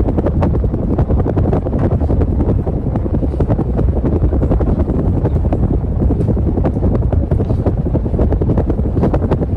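52-inch TroposAir Cresswind ceiling fan running on its top speed (sixth of six), a loud steady rush of air with a rapid flutter from the blades.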